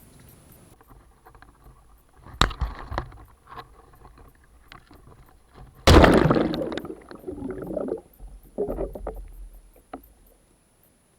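A sharp click, then a loud splash in water about six seconds in that tails off, followed by further sloshing and splashing.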